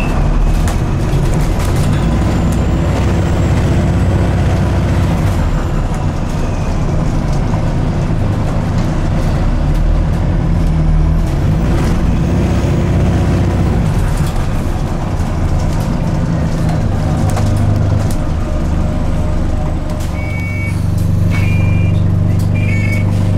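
Cabin noise inside an Alexander Dennis Enviro400H MMC hybrid double-decker bus on the move: a steady low drivetrain hum with road rumble. Near the end come a few short electronic beeps.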